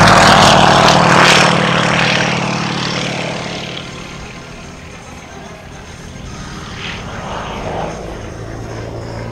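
Pitts Model 12 aerobatic biplane's nine-cylinder radial engine and propeller going by on a low pass. It is loudest over the first second and a half, fades away by about four seconds, and grows a little louder again near the end as the plane climbs.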